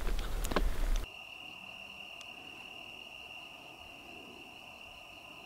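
About a second of low rumbling outdoor noise with a couple of clicks, then a steady, unbroken high-pitched trill of crickets.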